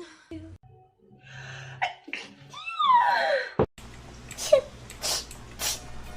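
Several sneezes cut together one after another: a high, squeaky sneeze whose pitch falls about halfway through and stops abruptly, then short, sharp sneezing bursts in quick succession, nearly two a second.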